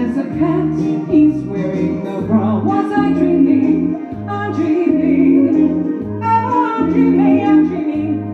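A woman singing a song over a band backing, with bass notes changing in a steady rhythm beneath the melody.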